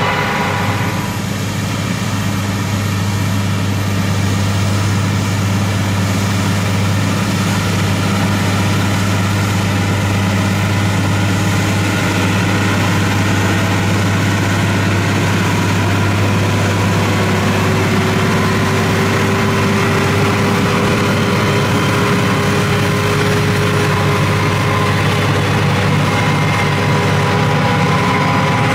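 Massey Ferguson 7718 S tractor's six-cylinder AGCO Power 6.6-litre engine running steadily under load, pulling a PTO-driven Amazone KE403 rotary harrow that is churning through the soil, a constant low drone.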